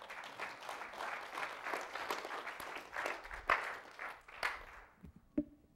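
Congregation applauding in a church hall, many hands clapping together and then dying away near the end. A single knock is heard just before the end.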